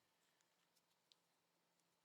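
Near silence, with a few faint small ticks.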